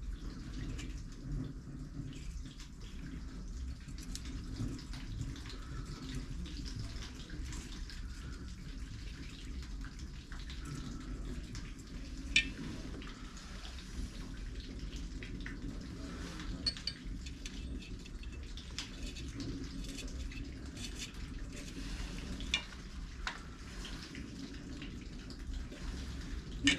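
Scattered light metallic clinks and taps of a socket and nuts being worked onto a motorcycle engine's studs, over a steady low hum.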